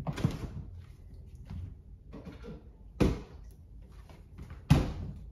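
Kitchen handling sounds: three sharp knocks and clunks, one just after the start, one about three seconds in and the loudest near the end, with quieter rustling between them, as things are moved about and a milk carton is fetched.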